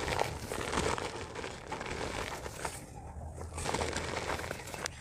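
Soft red dirt crumbling apart: a continuous dense crackle of many small crumbly breaks and grains falling.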